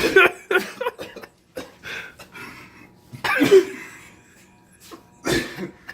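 A man coughing and breathing sharply in several short bursts, a reaction to the burn of an extremely hot sauce; the loudest cough comes about three and a half seconds in.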